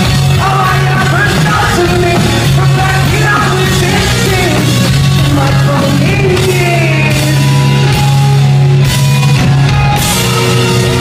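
Pop-punk band playing live: electric guitars, bass and drums under a sung vocal line, loud throughout over a held low bass note.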